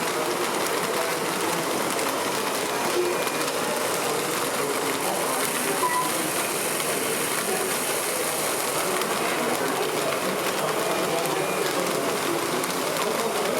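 Steady mechanical whirring and clatter of radio-controlled scale trucks' electric motors and gearboxes running, with a brief high hiss near the middle.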